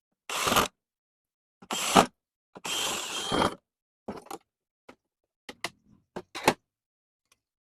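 Handling noises from work on a television: a few short scrapes or rubs, the longest lasting about a second, then a run of brief sharp clicks over the following three seconds.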